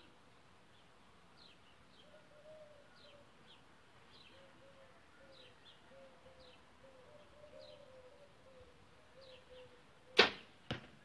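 Compound bow shot off a hinge release after a long hold at full draw: one loud sharp crack about ten seconds in, then a second, quieter crack about half a second later. Faint bird chirps come before the shot.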